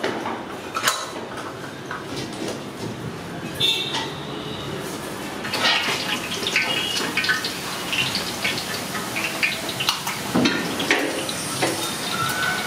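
Metal clinks and scrapes, first of a steel sev press being loaded with besan dough, then, from about halfway through, of a steel ladle working in a large kadai where besan sev fries in sizzling hot oil.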